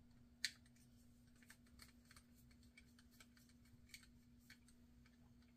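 Faint, irregular small clicks of a screwdriver working a screw in a Penn Peer 209 reel's Bakelite side plate, with one sharper click about half a second in, over a faint steady hum.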